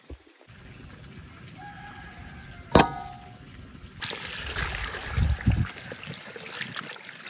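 Water from a hose pouring into a stainless steel bowl and splashing and sloshing as a whole fish is washed in it by hand, with a few low thuds from the hand moving in the water. Before the pouring starts, a single sharp knock with brief ringing.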